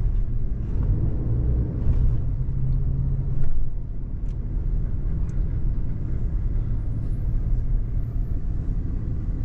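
Ram 3500 pickup's Cummins diesel engine running with a steady low rumble, heard from inside the cab.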